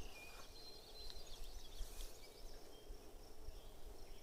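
Outdoor field ambience: a steady high insect drone, a few short high bird chirps in the first couple of seconds, and low wind rumble on the microphone.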